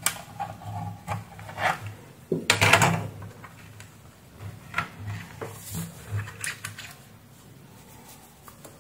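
Plastic router housing being handled and pressed into place on a bench: a run of clicks and knocks, the loudest cluster about two and a half seconds in, then a few lighter taps that die away.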